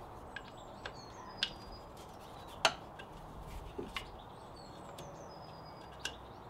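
Scattered small clicks and taps of hands working the plastic drain plug loose at the bottom of a magnetic central heating filter canister, the sharpest about three seconds in. A bird chirps faintly in the background.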